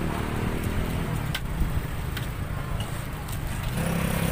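A motor vehicle's engine running steadily, a low hum that gets stronger near the end, with a few brief sharp clicks.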